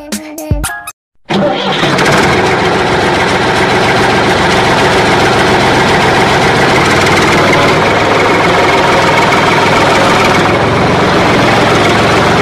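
A motor-vehicle engine sound, most likely a dubbed sound effect since the plastic toy tractor has no motor, starts up after a short break about a second in and then runs steadily and loudly. A few bars of music play before the break.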